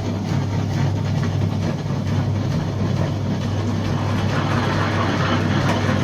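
Comport Plus smart wet grinder running with a steady low hum, its grinding stone turning inside the stationary drum with a gritty churning noise.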